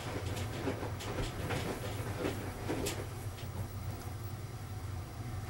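Faint clicks and scraping of a screwdriver and screw being worked into the plastic chassis of a VCR, over a steady low hum. The clicks come mostly in the first three seconds.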